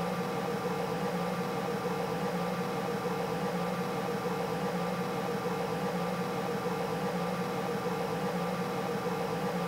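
Steady hum: a few fixed tones over an even hiss.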